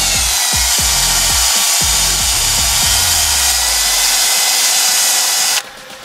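Cordless drill spinning a wire brush wheel against battery cable connections: a steady high whine with harsh scratching as the bristles scrub the corrosion off. It stops abruptly near the end.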